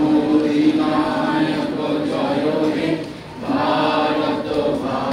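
A group of voices singing a slow song, holding long notes, with a short break about three seconds in.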